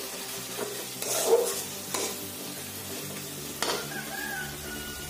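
A steel spatula scraping and stirring tomato masala in an aluminium kadai, with the masala sizzling in the oil. There are several short scrapes against the pan, the last about three and a half seconds in, and the sizzle runs on after it.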